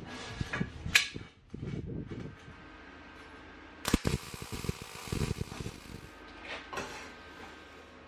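Steel square tubing clanking and knocking against a steel workbench as it is handled and laid out, with a sharp metallic knock about four seconds in, then fainter scattered knocks over a steady low noise.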